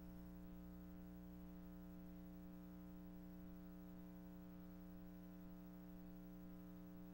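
Near silence apart from a faint, steady electrical hum.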